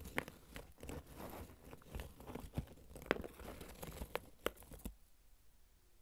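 Fingers crushing hardened blocks of dyed Comet scouring powder: a dense crumbling crunch with several sharp snaps as chunks break. It stops near the end.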